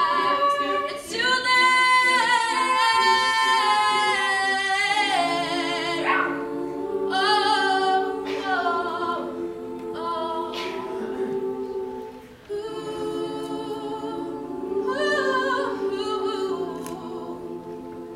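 Mixed-voice a cappella group singing: sustained backing harmonies under a moving lead melody, with a brief drop in loudness about twelve seconds in.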